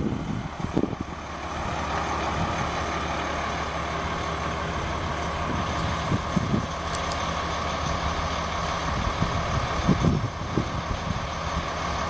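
A 1998 Blue Bird TC2000 school bus's rear-mounted diesel engine idling steadily, with wind gusting on the microphone at the start and again about ten seconds in.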